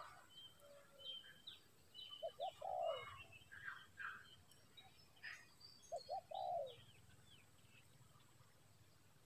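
Spotted dove cooing: two phrases, about 2 and 6 seconds in, each two short notes and then a longer falling coo. Small birds chirp faintly above it.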